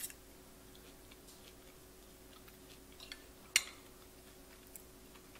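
A person eating a forkful of creamy pasta: faint chewing with small clicks, a click right at the start and one sharp, louder click about three and a half seconds in.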